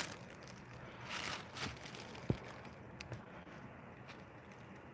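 Faint rustling and a few soft clicks and a small thump from a handheld phone being held and moved, over quiet room tone.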